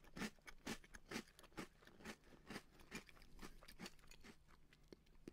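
A person chewing a mouthful of chocolate corn puff cereal in milk close to the microphone: faint, regular crunches about two a second, tapering off near the end.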